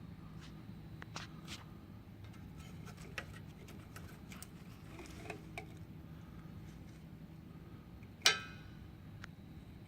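Light clicks and handling noises of small parts over a steady low hum. About eight seconds in comes one sharp metallic clink that rings briefly.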